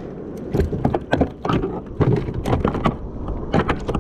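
Wind rumbling on the microphone, with a run of irregular knocks and clicks from gear being handled on a plastic fishing kayak.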